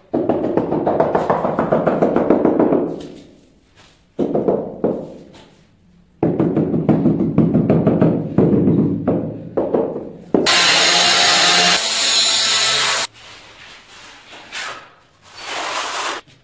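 White-headed mallet tapping quickly and repeatedly on a large wall tile to bed it into the adhesive, in three runs of rapid knocks. About ten seconds in a loud, harsh, steady scraping hiss lasts for about two and a half seconds, with a shorter one near the end.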